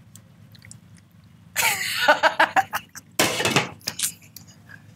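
Two people laughing loudly in breathy bursts, starting about a second and a half in and breaking out again around the middle, over a low steady hum.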